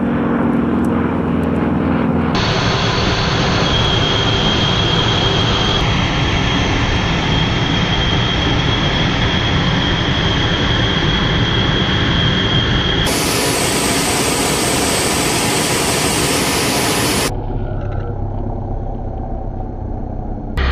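Aircraft engines in a series of cuts between airshow flybys. First a low-flying biplane's propeller engine drones briefly, then a jet runs with a steady high-pitched whine over a loud rush, then further jet noise follows.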